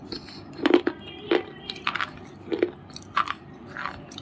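Close-up biting and chewing of a white unshaped bar: a run of crisp crunches, about one every half second, as pieces break between the teeth.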